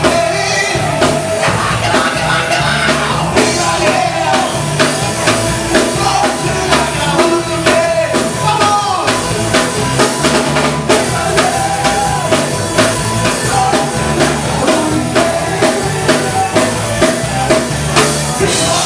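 Live rock band playing a song, with drum kit, bass and singing.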